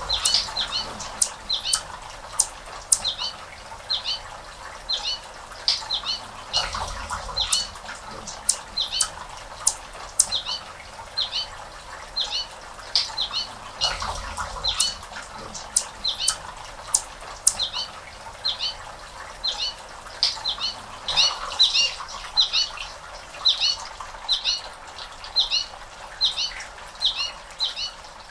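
Anna's hummingbird's wings humming as it hovers at flowers, the hum swelling up a few times, over a small bird's short high chirps repeating about once or twice a second.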